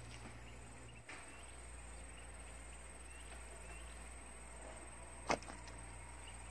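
Quiet outdoor ambience with faint chirping, broken by a single sharp click about five seconds in and a softer one about a second in.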